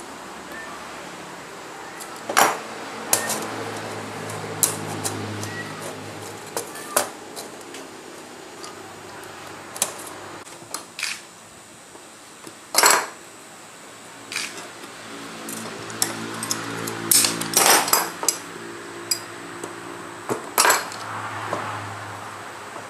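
Small pieces of thin metal strip clicking and clinking against one another and against the metal frame of a handmade batik stamp block as they are pressed in by hand. The clicks come at irregular intervals, and a few are sharper and louder.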